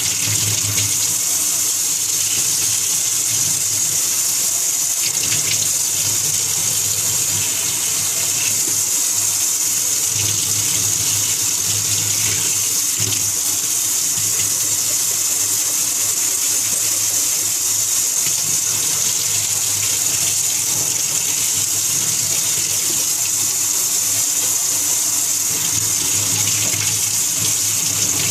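Water running steadily from a tap, a continuous even hiss.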